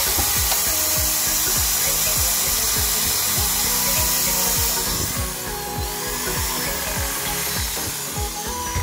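Makita HP1631 hammer drill's electric motor running steadily, a high rushing whine, under background electronic music with a steady beat.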